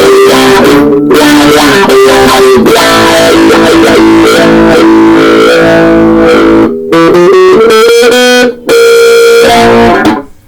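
Electric guitar played loud through an amp with a distorted, rough tone, in held notes and chords. There are two short breaks, and it stops just before the end.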